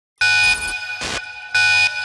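Electronic alarm buzzer sounding two short, loud blasts about a second apart, with a brief hiss between them, as a sound effect in a film trailer.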